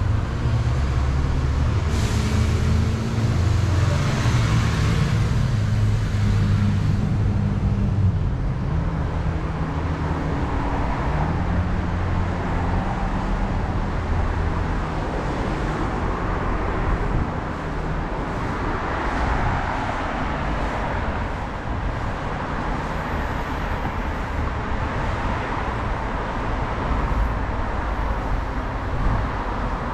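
Road traffic passing below on a multi-lane road. A heavy vehicle's engine hums low and shifts in pitch over roughly the first ten seconds, then steady tyre noise from cars swells and fades as they go by.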